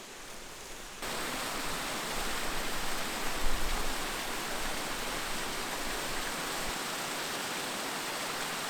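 Steady rushing hiss of river water, which steps up abruptly about a second in. A few low bumps on the microphone around the middle.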